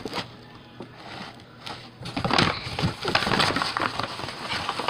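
Crackling, crinkling handling noise from about two seconds in, with a click at the very start, as slime and its packaging are handled and packed away.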